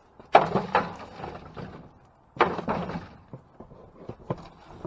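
A wooden-handled pole knocking and scraping against boxes and bags in a dumpster: two loud clattering knocks about two seconds apart, each trailing off, with smaller knocks and rustles between.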